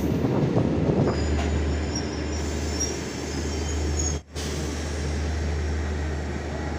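A diesel multiple-unit passenger train rolling past on the adjacent track as it pulls out of the station: rumbling wheels over a steady low drone, with faint high wheel squeals a couple of seconds in. The sound cuts out for a moment about four seconds in.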